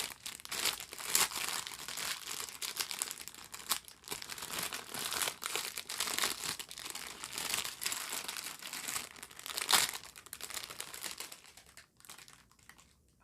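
Plastic food packaging crinkling and rustling as it is handled, with a few louder crackles; it dies down near the end.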